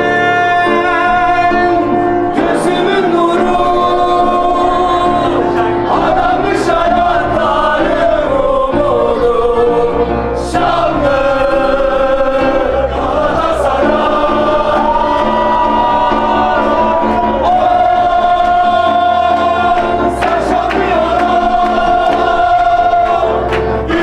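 A live song: a man singing at a grand piano, with a group of guests singing along loudly.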